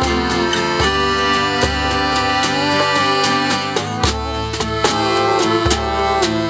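Acoustic folk band playing an instrumental passage: accordion chords over strummed acoustic guitar. Djembe and snare drum keep a steady beat, with deep djembe bass strokes about every second and a half.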